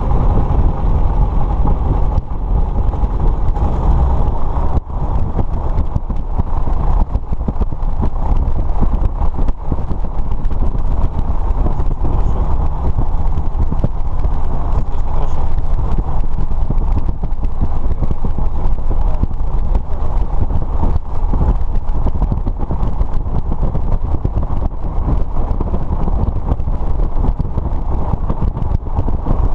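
Light aircraft's piston engine and propeller running steadily just after start-up, heard from inside the cockpit.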